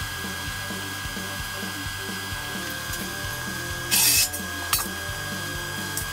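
Short bursts of MIG tack welding on a car's steel rear wheel arch: one loud crackling burst of about a third of a second about four seconds in, then a couple of brief clicks, over steady background music.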